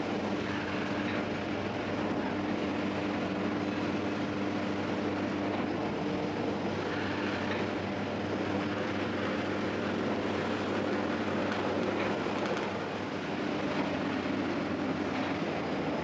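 Bakery machinery running: a steady mechanical hum with a held low drone, from the dough-dividing machine and its flour-covered dough table.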